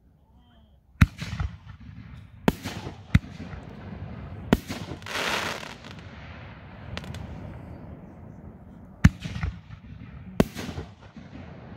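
Tannerite 4-inch, 60-gram canister firework shells going off from a rack: six sharp bangs at uneven intervals, each followed by a rumbling echo, with a second-long hiss about five seconds in.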